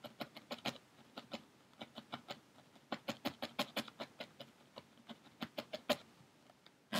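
Felting needle jabbing rapidly into wool roving against a foam pad, a quick even run of soft pokes several a second as a wool stem is felted onto a felted pumpkin. The pokes stop about six seconds in, followed by a single louder click at the end.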